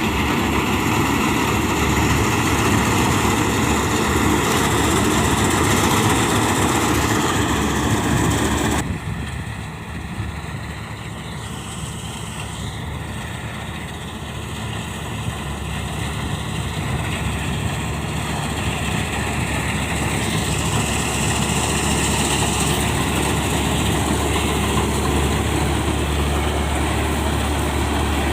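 Heavy diesel farm machinery, a combine harvester or tractor, running steadily. The sound drops abruptly about nine seconds in, then slowly builds back up.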